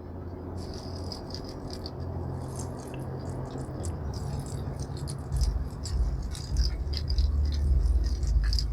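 Hot cooking oil bubbling and crackling in a pan, a dense, irregular spatter of small pops: the sign that the oil is hot enough for frying. A low rumble joins about five seconds in.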